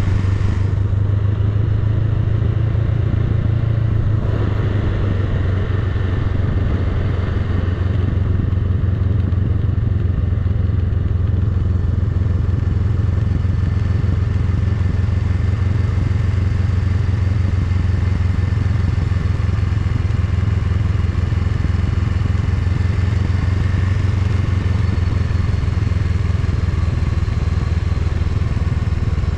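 Honda Rebel 500's parallel-twin engine running at low, steady revs on a slow downhill ride, over a constant hiss of wind and road noise. The engine note shifts slightly about four seconds in.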